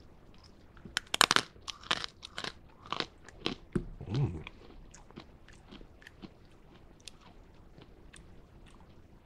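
Close-miked crunching as a freeze-dried Airhead taffy is bitten and chewed. The candy is brittle rather than chewy. The loudest crunch comes with the first bite about a second in, followed by a few more crunches up to about four seconds, then fainter, sparser clicks as it breaks down in the mouth.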